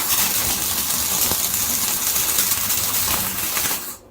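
Electric arc welder running a bead along the seam of a steel stack to seal it for a forge weld: a steady crackling hiss that starts abruptly and cuts off shortly before the end.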